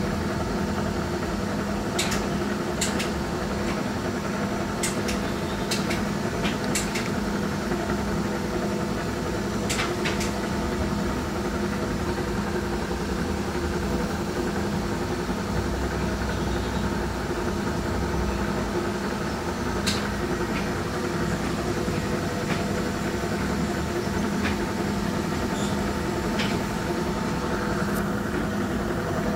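Metal-working lathe running steadily with a constant machine hum, and a few short clicks and taps scattered through it.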